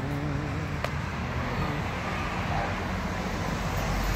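Steady rumble of a vehicle engine, with a single sharp click about a second in.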